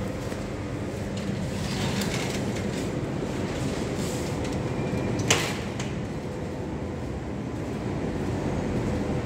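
Steady hum and drone of running industrial machinery and electrical equipment in a switchgear room, with one sharp click about five seconds in.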